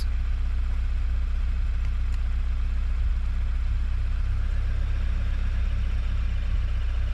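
2016 Subaru WRX's turbocharged flat-four engine idling steadily, with the clutch being worked. A faint squeak at idle, which stops when the clutch is pressed, is suspected by the owner to be a worn throwout bearing.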